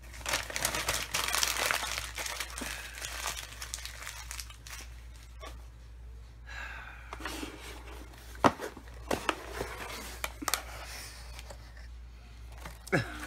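Paper packaging being torn and crinkled as a cardboard mailer box is opened, loudest in the first few seconds, then softer tissue-paper rustling. A few sharp taps come about two-thirds of the way through.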